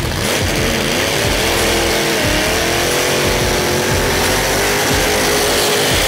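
Willys gasser pickup's engine held at high revs in a burnout, its pitch climbing over the first couple of seconds and then holding steady, with the hiss of the spinning rear tyres underneath.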